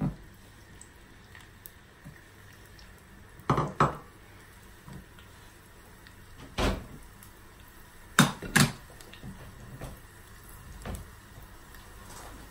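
Kitchenware being handled and set down: a series of sharp knocks and clatters, some in quick pairs, over a low steady background.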